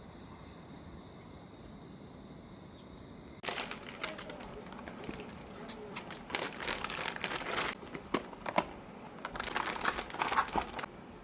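Crinkling and rustling in irregular bursts, starting about three and a half seconds in and stopping shortly before the end, like material being crumpled and handled. Before it there is only a faint steady high hiss.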